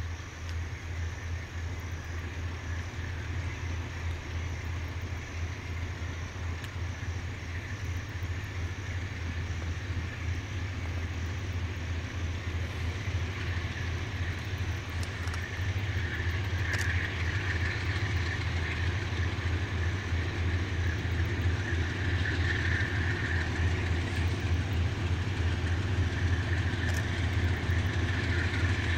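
Diesel-electric freight locomotive approaching under power, its engine drone growing steadily louder, with a higher whine joining in from about halfway.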